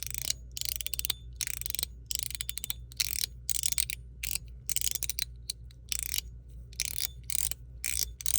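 Chenyu Guardian slider fidget in PEI plastic being slid back and forth, its standard ball-detent track giving a quick run of clicks on each stroke, about two strokes a second.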